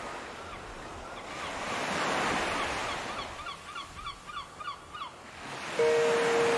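Ocean waves washing in and ebbing, with a run of quick, repeated bird calls in the middle. Steady music notes begin near the end.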